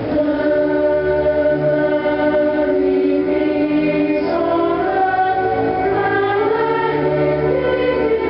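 A choir singing a slow, sustained song with instrumental accompaniment, played over the show's outdoor sound system.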